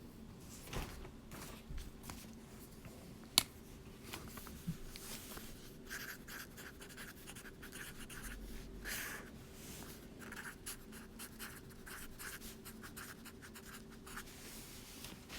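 Quiet tapping, clicking and scratchy rustling of hands handling small objects, with one sharp click about three and a half seconds in, over a faint steady hum.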